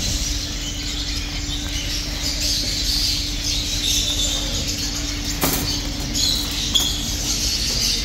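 Many small caged finches chirping and twittering at once, high and overlapping. Under them a steady low hum runs and then cuts off with a click about five and a half seconds in.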